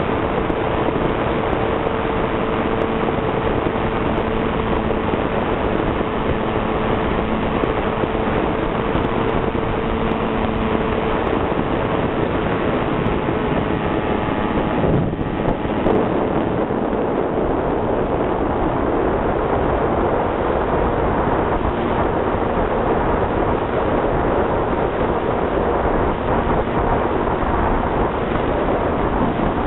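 Radio-controlled model airplane's motor and propeller droning steadily, heard from the plane's onboard camera, under a constant rush of wind over the microphone. About halfway through there is a brief disturbance, after which the drone's hum is less distinct in the wind noise.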